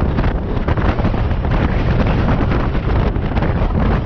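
Heavy wind buffeting on a motorcycle-mounted action camera's microphone while riding, a loud, continuous low rumbling roar.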